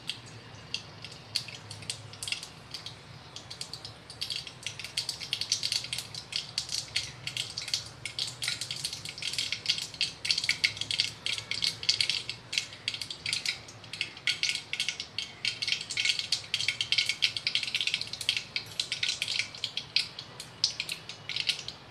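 Mustard and cumin seeds crackling and popping in hot oil in a steel kadhai: the tempering starting to splutter. The pops are sparse at first and come thick and fast from about four seconds in.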